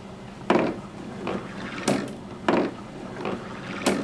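Glass marbles on a balsa-wood and poster-board marble roller coaster: six sharp clicks and knocks, about one every two-thirds of a second, as marbles come up the lift and knock into the others held at the top. A low steady hum runs underneath.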